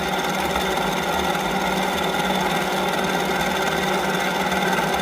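A small motor running steadily at an even speed.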